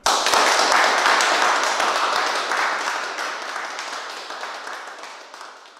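Audience applauding, starting suddenly and slowly dying away.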